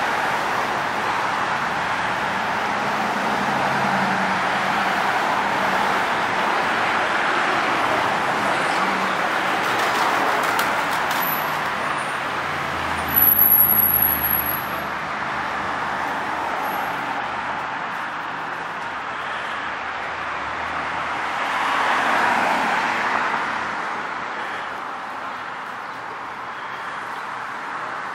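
Street traffic noise: a steady wash of passing cars, with one vehicle swelling past a little after twenty seconds in. A brief loud thump about thirteen seconds in is the loudest moment.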